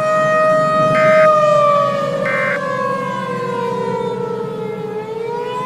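Civil defense tornado siren holding a steady tone, then winding down in pitch from about a second in. It cuts off suddenly at the end. Two short, higher blips sound over it, about a second and a half apart.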